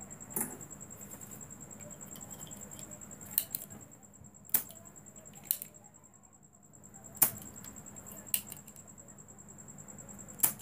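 Spring-loaded desoldering pump snapping as it sucks molten solder off the pins of a TV power board's power switch: about seven sharp clicks, spread out, with a steady high tone and a low hum underneath.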